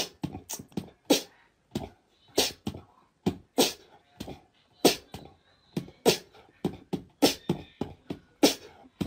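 Small dog barking in a run of short, sharp barks, roughly one or two a second at an uneven pace.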